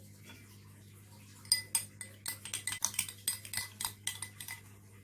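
A spoon stirring lime juice and sweet soy sauce, clinking quickly against the sides of the container, about five light ringing clinks a second. The clinking starts about a second and a half in and stops shortly before the end.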